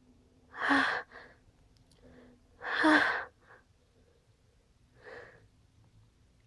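A person building up to a sneeze: two loud, sharp breathy bursts about two seconds apart, each followed by a short softer breath, then a fainter breath about five seconds in.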